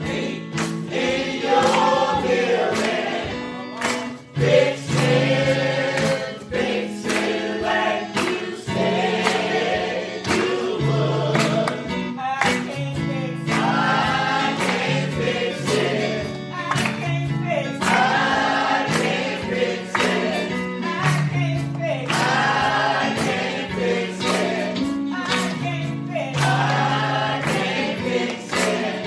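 Church choir singing a gospel song with instrumental backing and a steady drum beat.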